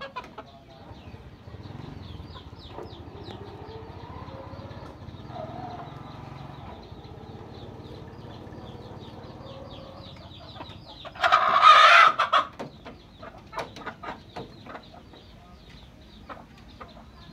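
Chickens clucking softly, with one loud, harsh squawk about a second long starting about eleven seconds in.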